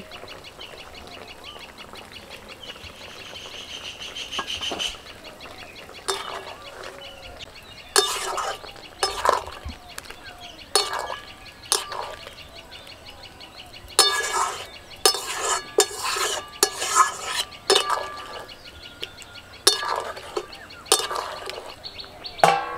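Metal spatula stirring and scraping in a metal wok of simmering drumstick and potato curry after mustard paste is added, in repeated short scrapes that come in clusters. Near the end a metal lid clanks onto the wok to cover it.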